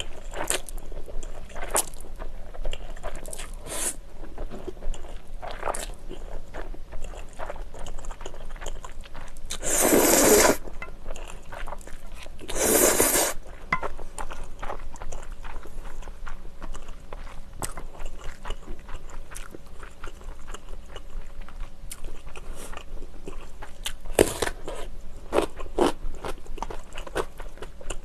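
Close-miked eating sounds of spicy stir-fried ramen noodles: wet chewing clicks throughout, and two loud slurps of about a second each, a little past a third of the way in and about three seconds later.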